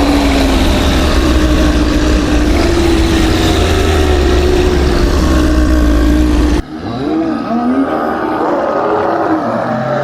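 Horror sound-effect soundscape: a loud, dense rumble with a deep low drone and a wavering tone, cutting off suddenly about six and a half seconds in, followed by quieter growling groans that slide up and down in pitch, as of zombies.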